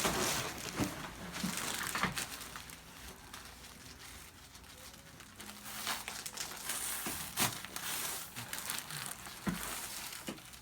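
Rustling and crinkling of a person shifting and turning over on a chiropractic table, with a few short clicks and knocks. It is quieter for a couple of seconds in the middle.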